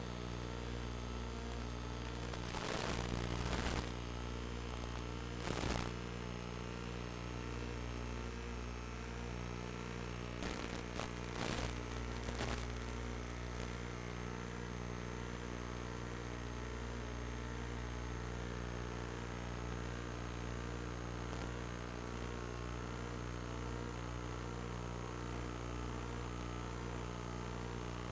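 A steady electrical hum of many held tones, broken by brief crackling bursts about three and six seconds in and again around eleven to twelve seconds in.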